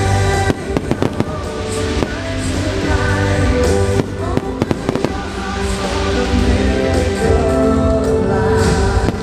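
Aerial fireworks bursting and crackling over loud music played with the display, with clusters of sharp bangs about half a second in and again around four to five seconds in.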